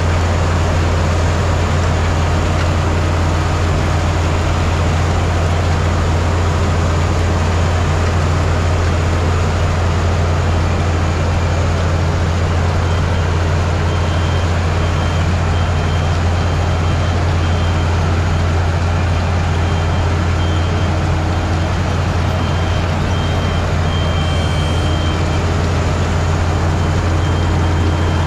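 Ploeger self-propelled pea harvester running steadily while it harvests: a loud, constant low engine drone with machinery noise over it. A faint on-and-off high tone comes in over the second half.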